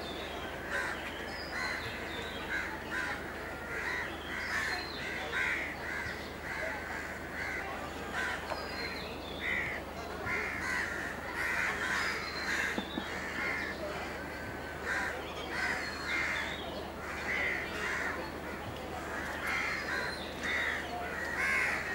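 A flock of birds calling, many short calls one or two a second, over a steady low hum.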